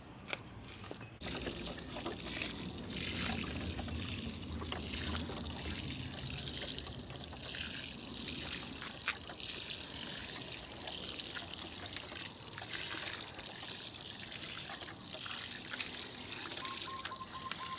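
Water trickling and pouring onto potting soil as freshly sown seeds are watered, starting about a second in and running on steadily.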